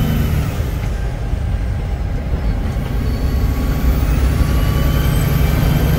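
Semi truck's diesel engine running on the road, heard from inside the cab: the high turbo whistle drops away about half a second in and winds back up over the next few seconds as the engine pulls again.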